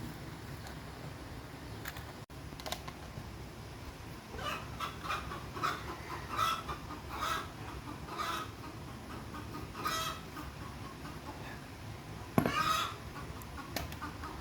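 Chickens clucking in a run of short repeated calls, beginning about four seconds in, with one louder, longer call near the end.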